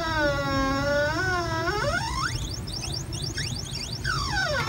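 Winch motor whining as it reels the line, its pitch sliding down, wavering, then climbing again as the motor slows and speeds up; a second downward slide begins near the end.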